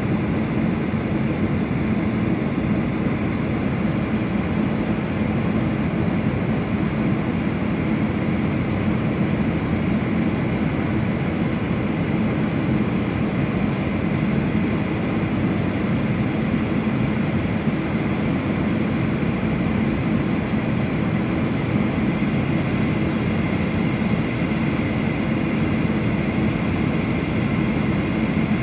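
Steady cabin noise of a Boeing 737's jet engines and rushing airflow, heard from a window seat on descent, an even low drone with a faint hum on top.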